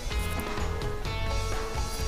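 Background music with a steady beat and held tones.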